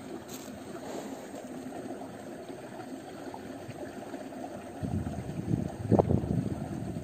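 Wind rumbling on the microphone: steady at first, then gusting harder from about five seconds in, with one sharp bump about six seconds in.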